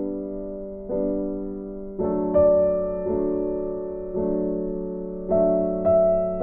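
Background piano music: slow, gentle notes struck about once a second and left to ring.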